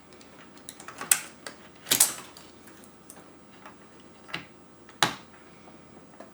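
Plastic keycaps on an Amiga 1200 keyboard being pressed down onto their switches: a handful of scattered sharp clicks, the loudest about two and five seconds in.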